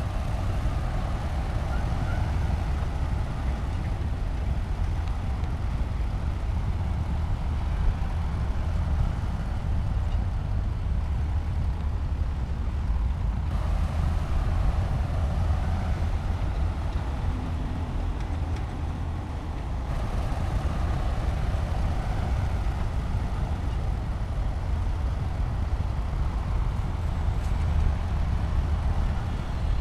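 Heavy diesel engine of a bulldozer running steadily, a deep continuous rumble. The sound shifts abruptly twice, around the middle.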